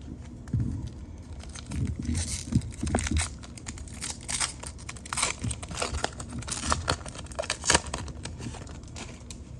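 Foil wrapper of a Panini Prestige football card pack crinkling and tearing as it is handled and ripped open. A few soft knocks on the countertop come in the first three seconds.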